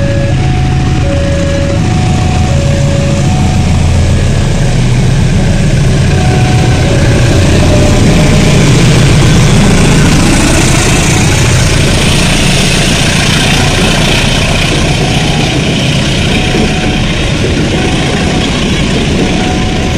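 Diesel locomotive and passenger train passing close by: the engine rumble builds as the locomotive approaches and goes past about ten seconds in, then the coaches' wheels on the rails make a steady noise. Behind it, a level crossing alarm sounds its two alternating tones.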